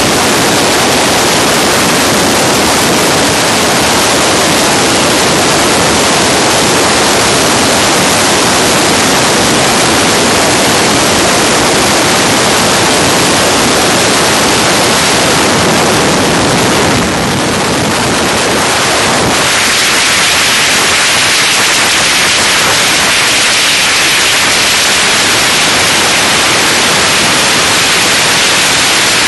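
Loud, steady rushing noise of wind and road buffeting a phone microphone in a moving car at highway speed. About twenty seconds in it turns thinner and hissier.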